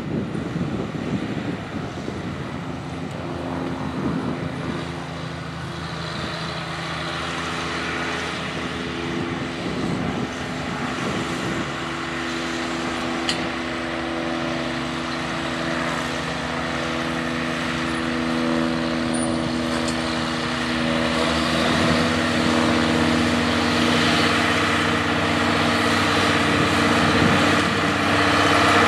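J.I. Case 2594 tractor's 8.3-litre turbocharged diesel engine running steadily under load while pulling a corn planter, growing louder as the tractor approaches.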